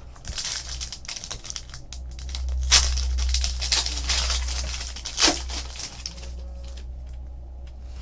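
Foil trading-card pack wrapper crinkling as it is torn open by hand, with two sharper rips, one nearly three seconds in and another past five seconds, then quieter handling.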